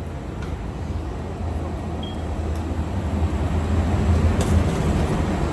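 Low, steady rumble in an airport jet bridge, growing louder while moving along it toward the aircraft door, with a few faint clicks.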